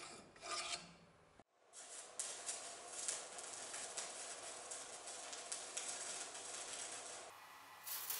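Stick (electrode) arc welding on the cracked poll of an axe head: a steady crackle from the arc that goes on for several seconds. Before it, in the first second, a few brief scraping strokes of steel in the ground-out weld groove.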